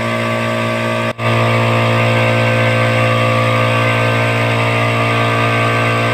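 Electric air compressor running steadily, its motor and pump humming as it fills the tank with air. There is a brief break in the sound about a second in.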